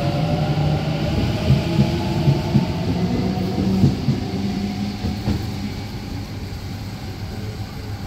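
Sydney Trains B set (Waratah Series 2) electric train pulling away. Its traction motors give a rising whine over the first few seconds, with a few sharp clicks from the wheels, and the sound fades steadily as the train leaves.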